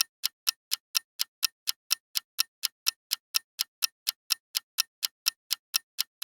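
Clock-ticking sound effect, short sharp ticks about four a second, marking the quiz's countdown while the viewer picks an answer.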